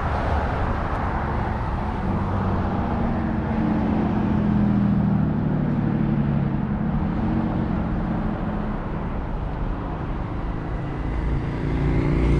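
Engines of vehicles passing on the road over a steady traffic rumble. The sound swells a few seconds in and again near the end as another vehicle goes by.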